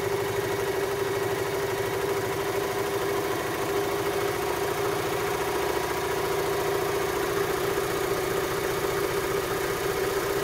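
Baby Lock Victory overlocker running at a steady speed, stitching a narrow, close-set overlock edge with its leftmost needle removed: an even hum with a fast stitching rhythm.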